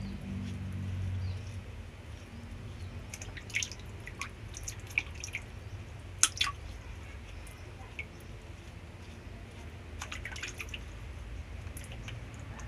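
Water dripping and pattering in scattered, irregular drops as a wet sponge washes a baby monkey, with a low steady hum underneath.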